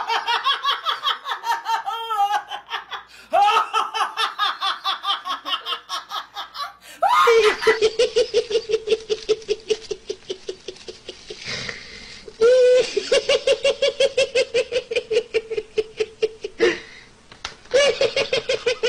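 A woman laughing hard in high, breaking bursts. About seven seconds in, a man takes over with a long run of rapid, evenly paced, high-pitched laughs on one steady note, broken twice by short pauses.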